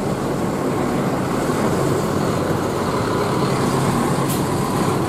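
Mercedes-Benz OF 1526 coach's six-cylinder diesel engine running steadily at low speed as the bus drives slowly past.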